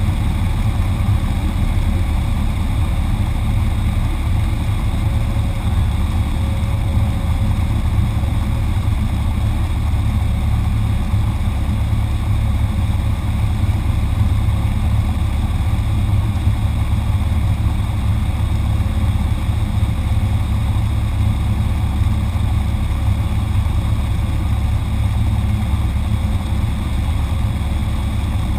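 Cessna 172 cockpit noise in a power-off glide on final approach: the engine throttled back to idle with the propeller turning, under a steady low drone and airflow rush that holds an even level throughout.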